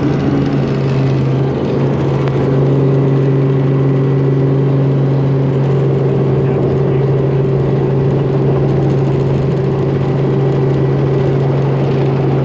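Tour helicopter's engine and rotor running with a loud, steady hum as it slows on its final approach to the landing pad; a second, higher tone joins in for a few seconds about two seconds in.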